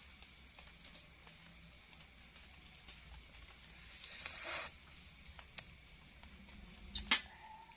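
A person sipping hot coffee: one noisy slurp lasting about half a second, a little past the middle. A sharp knock near the end, over a faint steady high-pitched background.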